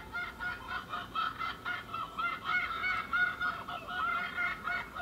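A chorus of many rapid, overlapping goose-like honking calls, played as an example of the calls the armoured dinosaur Pinacosaurus may have made.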